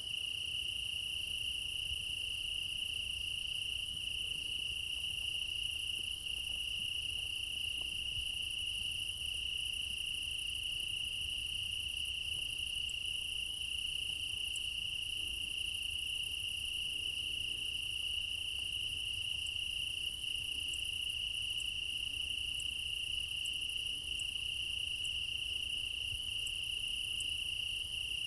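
Crickets chirping in a continuous, steady chorus at night, a high trill that never lets up.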